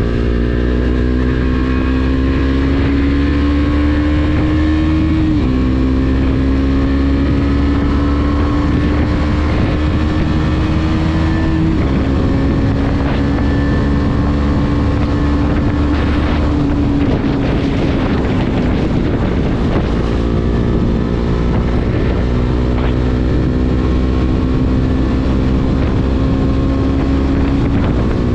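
KTM Duke 250's single-cylinder engine through an SC Project slip-on exhaust, the bike being ridden. The engine note climbs slowly and drops sharply at gear changes about five and twelve seconds in, then eases off around seventeen seconds and holds steady. Wind noise runs on the microphone.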